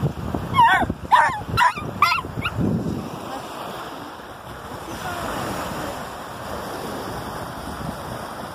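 A small dog gives four short, high whining yips about half a second apart, then waves wash on the shore with wind on the microphone.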